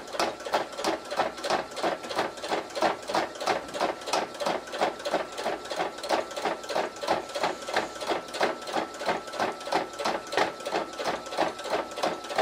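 Janome electric sewing machine, fitted with a size 110/18 jeans needle, stitching slowly through six layers of fleece: an even run of needle strokes, three or four a second, over a faint steady whine. It is the normal sewing noise of the machine, with no labouring.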